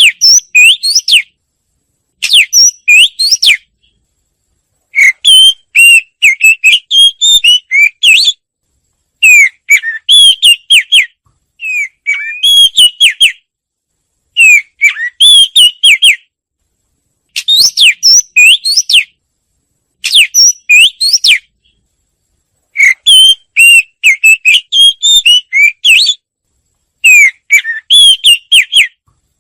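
Wagtail song: loud phrases of quick, high, twittering whistled notes, each lasting a second or two, repeated about ten times with short silent gaps between.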